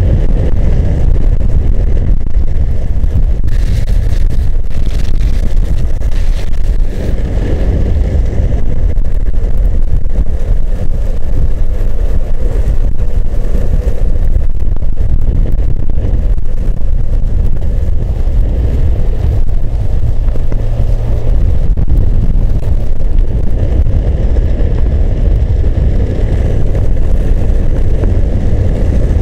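Loud, steady wind rush buffeting the microphone, with low road rumble, from a camera travelling fast downhill behind a longboarder on asphalt.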